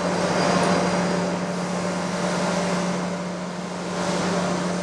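Surface grinder running: a steady machine hum with a constant low tone.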